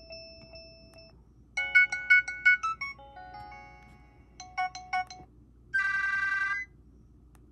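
Nokia 225 feature phone playing short ringtone previews through its small speaker, one after another as the ringtone list is scrolled, each cut off when the next is highlighted. A fading tone is followed by several quick electronic melodies and a fast warbling trill about six seconds in.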